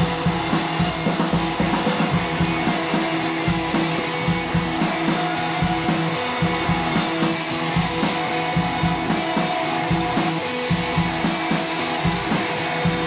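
Background music with drums and guitar, playing a steady beat.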